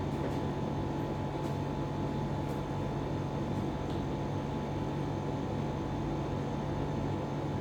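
Steady machine hum, with a constant low tone and a fainter higher whine, running evenly without change.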